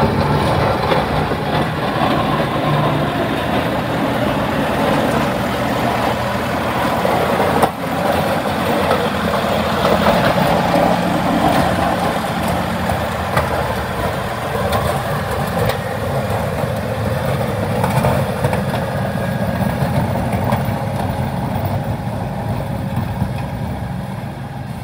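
Massey Ferguson 1840M tractor's 40-horsepower turbocharged diesel engine running steadily as the tractor drives and pushes snow with its front blade.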